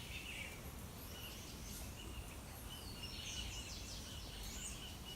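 Faint outdoor ambience of several birds chirping and calling in short, scattered notes over a low steady hum.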